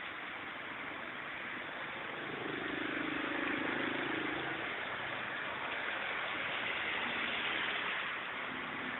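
Heavy rain pouring steadily, with a car engine passing by from about two to five seconds in.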